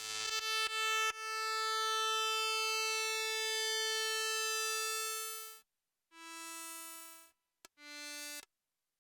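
Fred's Lab Manatee synthesizer playing a bright, buzzy preset: a few short staccato notes, then one note held for about four seconds, then two shorter, lower notes.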